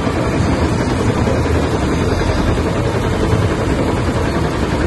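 Steady engine rumble from the machinery lowering a heavy load on steel cables, with no let-up.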